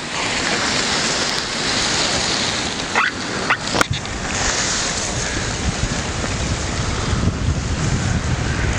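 Drifting river ice floes and slush ice rubbing and grinding against one another in a steady hiss, with a few short squeaks about three to four seconds in.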